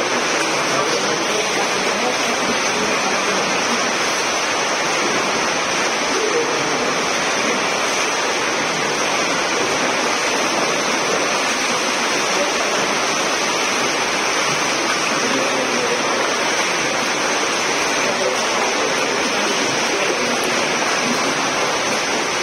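Steady wash of water splashing from several swimmers doing front-crawl laps in an indoor pool.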